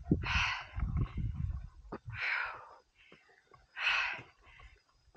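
A hiker breathing hard while climbing a steep trail at high altitude: three heavy exhales, one every one and a half to two seconds.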